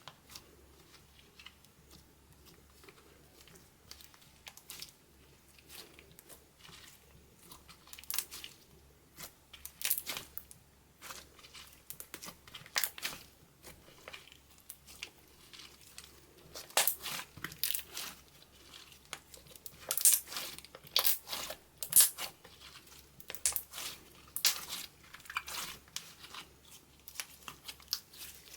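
Clear slime being worked by hand, giving irregular sticky clicks and crackles that grow louder and more frequent partway through.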